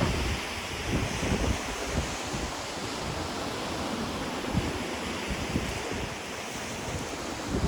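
Ocean waves washing onto the shore in a steady hiss, with wind buffeting the microphone in low rumbling gusts, strongest at the start and near the end.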